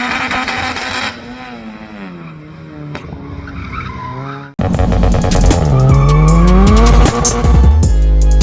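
Car engine revving, its pitch falling and rising, in two passages split by an abrupt cut about halfway; the second passage is louder and full of sharp crackles.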